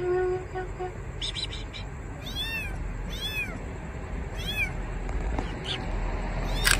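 A kitten mewing: one call at the start, then three short, high-pitched cries that rise and fall in pitch, a second or so apart.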